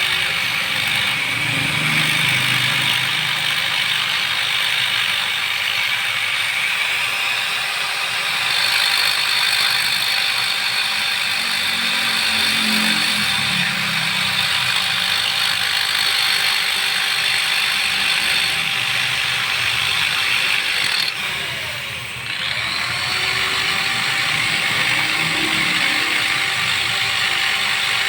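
Electric die grinder running steadily, porting a Suzuki Satria two-stroke cylinder: a whine over a harsh hiss. About 21 seconds in, it briefly spins down and then speeds back up.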